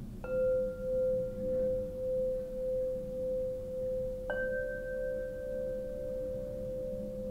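Quartzophone crystal harp: quartz crystal tubes struck with a soft-headed mallet, two notes about four seconds apart. Each rings on long with a slow, wavering pulse, and the second, slightly higher note sounds over the still-ringing first.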